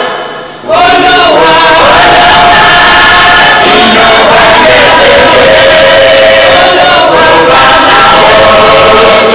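Church choir of men and women singing together, loud and sustained, with a brief break in the sound just at the start before the singing resumes.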